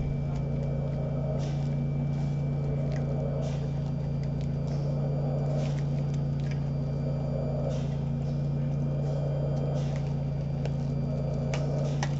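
Steady low machine hum, with a soft whoosh swelling about every two seconds and scattered faint clicks of handling.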